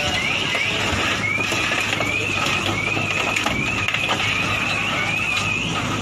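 Car alarm of a crushed SUV sounding in rapid rising whoops, about three a second, over the steady low hum of the JCB excavator's engine.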